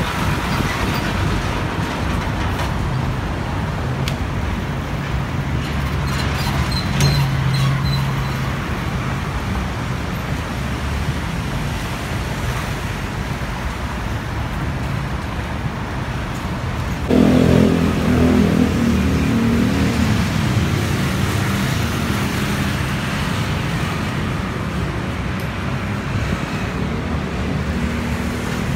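Steady road traffic noise from passing cars, with an engine coming past close and loud about seventeen seconds in, then fading.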